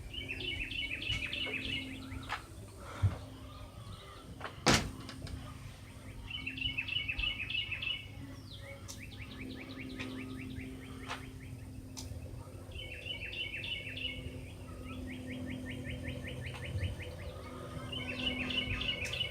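A songbird singing short, repeated trilled phrases every few seconds, with a steady low hum beneath. A sharp click about three seconds in and a louder knock about five seconds in.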